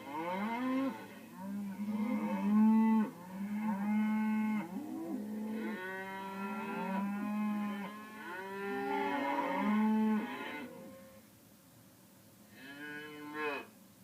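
Cow mooing: a run of long, drawn-out moos for about ten seconds, then a pause, and one shorter moo near the end.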